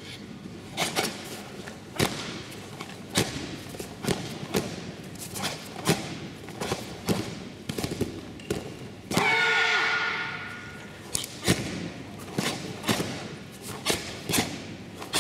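A Shotokan karate team performing a kata: a string of sharp snaps and thuds from gi sleeves cracking on punches and bare feet stamping on the mats. About nine seconds in, the team lets out one loud kiai shout lasting about a second.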